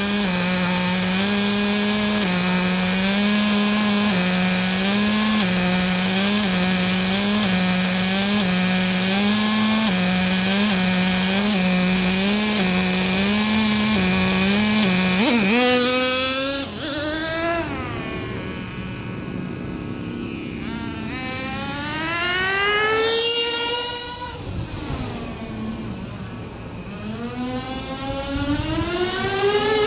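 Traxxas T-Maxx's O.S. CV.15 two-stroke nitro engine idling, its pitch wavering up and down about once a second. About halfway through it revs and the truck drives off, the engine note climbing and falling several times as it speeds up and slows, quieter as it moves away.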